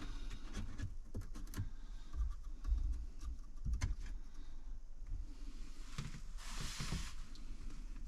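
Plastic dash trim being handled: scattered light clicks and knocks, with a short scraping rustle about six and a half seconds in.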